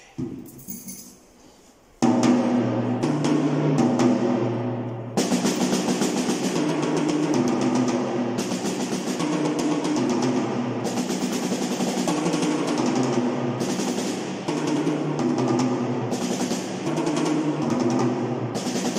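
A PDP drum kit, freshly tuned, played with sticks: after a few light taps, it starts loud and suddenly about two seconds in with fast rolls across the snare and toms, the drums ringing. Cymbals join about five seconds in.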